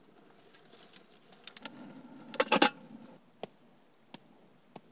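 Dry straw and twig kindling crackling and snapping, with a quick run of loud snaps about halfway through and scattered single cracks after it.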